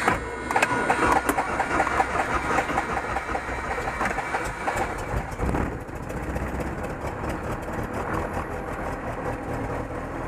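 Start of a Super Decathlon's Lycoming four-cylinder aircraft engine: an uneven pulsing for about the first five seconds, then, after a brief dip, the engine settles into a steady idle.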